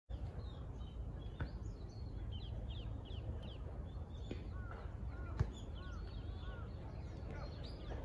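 Small birds calling repeatedly in short, curved chirps over a steady low rumble, with one sharp click about five and a half seconds in.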